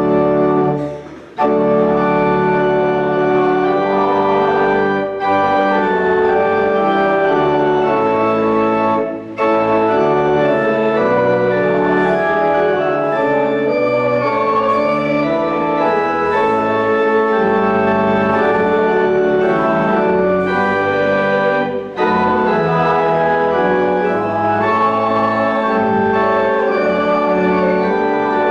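Church organ playing slow, sustained chords, with short breaks between phrases about a second in and again around 5, 9 and 22 seconds.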